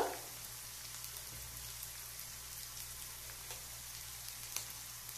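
Hot oil in a kadhai sizzling faintly and steadily with fried onions and freshly added spice powders, with a few small pops.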